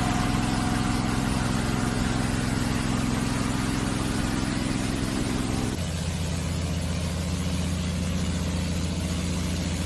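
An engine running steadily with a low hum, its note dropping abruptly to a lower, different hum about six seconds in.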